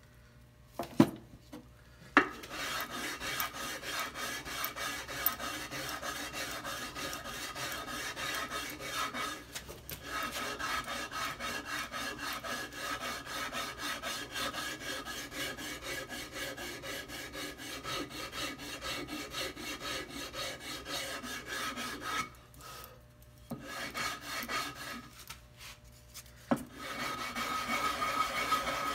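Sandpaper on a hand sanding block rubbed back and forth over a carved wooden half-hull model in quick, continuous strokes, with two short pauses near the end. A couple of sharp knocks come in the first two seconds, before the sanding starts.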